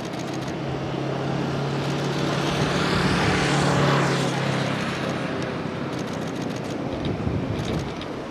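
A road vehicle driving past: engine hum and tyre noise swell up, peak about halfway through, then fade away.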